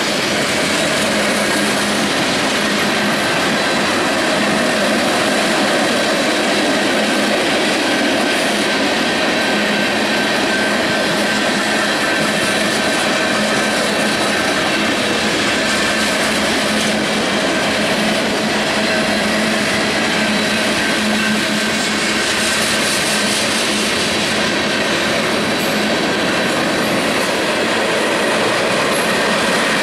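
Union Pacific freight train's cars rolling past: a steady rumble and rattle of wheels on the rails, with a few steady high tones over it.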